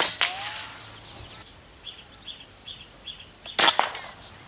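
Two sharp cracks from a PCP air rifle firing 23-grain slugs: one right at the start and a second, with a quick double peak, about three and a half seconds in. Between them a bird chirps about twice a second, and a steady high insect buzz comes in about a second and a half in.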